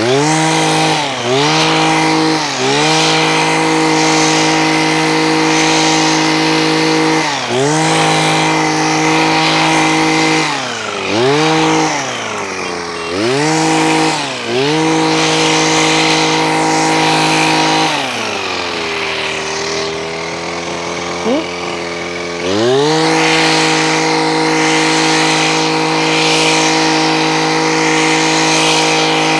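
Kawasaki TJ23V two-stroke petrol hedge trimmer running at high revs while cutting through weeds and vines. The engine drops briefly to idle several times as the throttle is let off and picks up again. About 18 seconds in it idles for a few seconds before revving back up.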